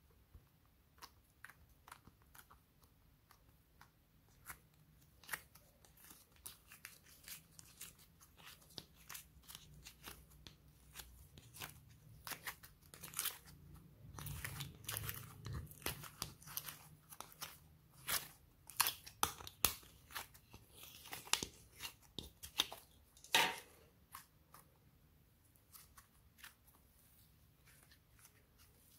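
Glossy slime being squeezed and kneaded by hand, giving a run of sharp crackling clicks and pops. They start sparse, grow denser and louder through the middle, then thin out near the end.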